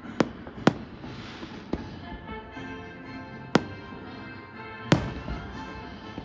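Aerial fireworks going off in a string of sharp bangs, about five in all, the loudest about five seconds in with a short rumbling tail. Music plays underneath.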